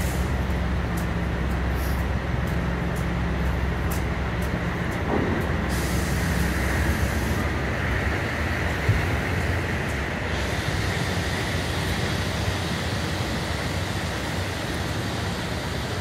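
Steady city street noise, with a heavy vehicle's engine running low for the first six or seven seconds.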